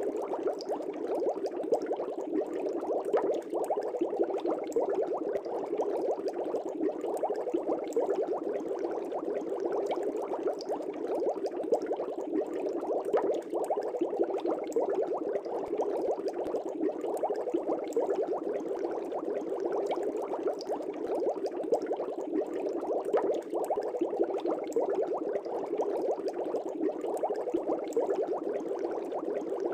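Air bubbles streaming steadily through the water of a fish tank: a dense, even bubbling with many small pops.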